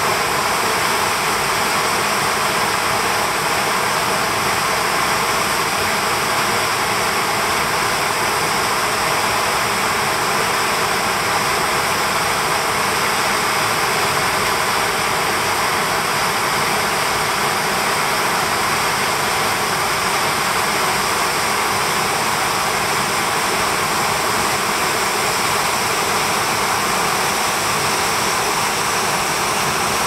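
Khanag waterfall in high flow, a heavy column of water falling down a rock chute and crashing into its plunge pool: a loud, steady rushing noise with no change in level.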